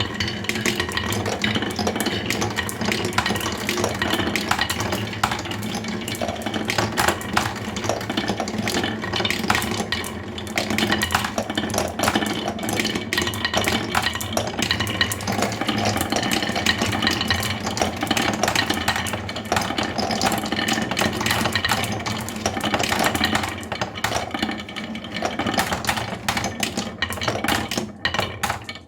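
Continuous clattering and rattling of small hard pieces over a steady low motor hum, from radio-controlled construction models working loose material.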